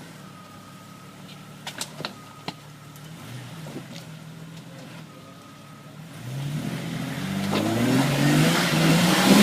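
Off-road vehicle's engine idling with a few sharp knocks, then revving up in several rising surges as it is driven up over a rock, growing loudest at the end.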